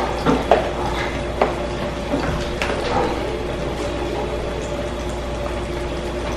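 Metal spoon stirring and mashing potato salad in a plastic bowl, with several light knocks and scrapes against the bowl in the first three seconds, over a steady kitchen hum.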